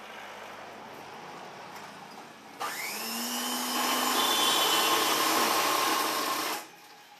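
Electric sewing machine motor starting about two and a half seconds in with a rising whine, running at a steady high whir for about four seconds while stitching mosquito netting, then cutting off suddenly.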